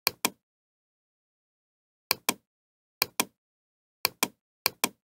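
Computer mouse button clicked five times, each click a quick double tick of press and release, with dead silence between clicks.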